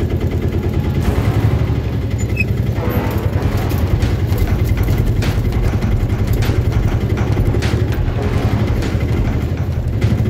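A tuk-tuk (auto-rickshaw) engine running steadily, with a fast, even low pulsing, as it moves slowly over a rough dirt track. A few sharp knocks stand out over it.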